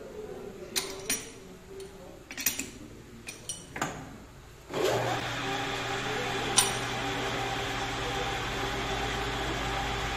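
A few scattered metallic clinks and knocks as the clutch bell is handled in the lathe chuck. About five seconds in, the metal lathe starts up suddenly and runs steadily, its spindle spinning a scooter clutch bell in the chuck with a low hum. There is one sharp click shortly after it starts.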